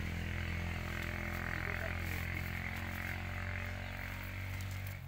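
A small engine running steadily, a low even drone that cuts off suddenly near the end.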